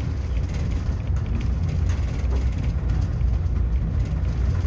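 Passenger train coach running on the rails, heard from inside: a steady low rumble of wheels on track with frequent light clicks and rattles.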